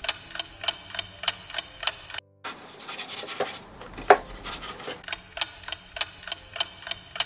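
Clock ticking, about three ticks a second, broken in the middle by a couple of seconds of scrubbing on wood as the old finish is stripped off with chemical stripper, with a single knock about four seconds in.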